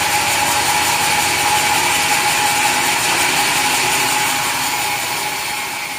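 Sawmill saw cutting through mahogany wood: a loud, steady grinding noise with a high whine, fading out near the end.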